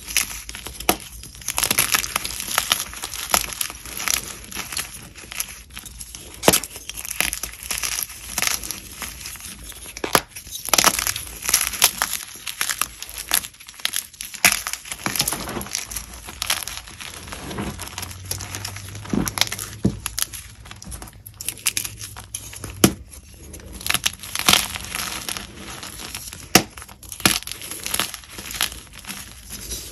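Pieces of chalk crunching as they are bitten and chewed close to the microphone: crisp, irregular crunches in quick clusters with short pauses between.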